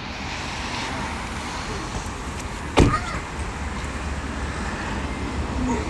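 Steady low rumble of a car running, with street traffic around it, and a single sharp thud about three seconds in, as a car door is shut.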